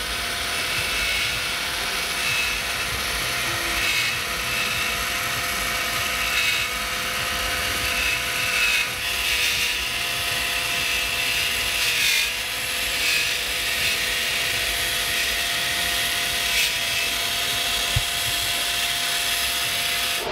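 Radio-controlled model John Deere forage harvester running, its small motor giving a steady whine while it chops grass and blows it into a trailer, with a few light clicks along the way.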